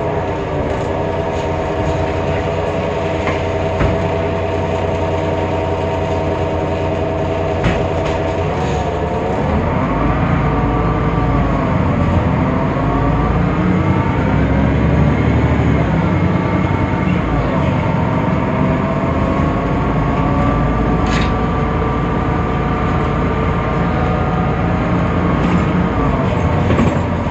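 Temsa Avenue LF city bus under way: its DAF PR 228 diesel and ZF Ecolife automatic gearbox give a whining tone that falls as the bus slows at the start, holds steady, then rises and dips several times with speed before falling again near the end. The sound is one the uploader calls strange and different from normal for this bus. A few short sharp clicks cut in along the way.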